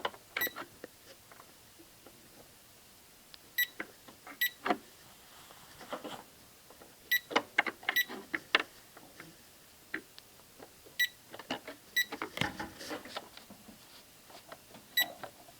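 Electronic cash register beeping in short high double beeps about every four seconds, with scattered clicks and taps in between.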